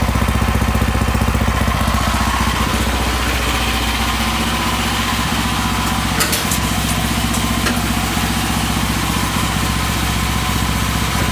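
DuroMax 16 hp single-cylinder gas engine in a Bobcat 310 skid steer running steadily, with a couple of sharp clicks about six and seven and a half seconds in.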